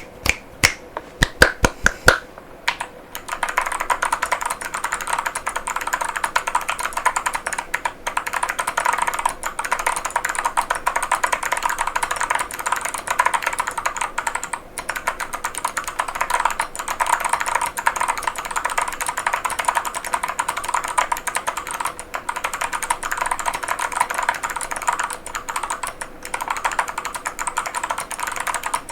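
Mechanical keyboard with Kailh White Owl V2 switches and full-metal keycaps (Epomaker Tide75): several separate key strikes in the first two seconds, then fast continuous typing.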